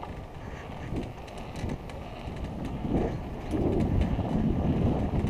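Wind buffeting the camera's microphone and bicycle tyres rolling on asphalt during a downhill ride, growing louder as speed builds, with a few light clicks and rattles.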